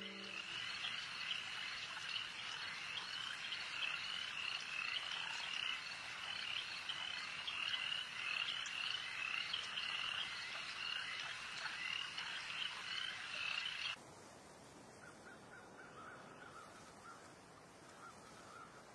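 A dense chorus of animal calls: rapid, high chirps repeating several times a second. It cuts off suddenly about fourteen seconds in, leaving a quieter ambience with a few faint, lower calls.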